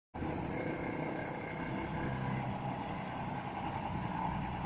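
Mercedes-Benz 917 truck's diesel engine running steadily as the truck drives slowly by.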